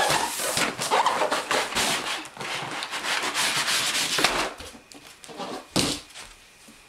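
Cardboard packaging scraping and rustling against the sides of a shipping box as the top insert is slid up and out, a rough rubbing that goes on for several seconds. One short sharp scrape follows near the end.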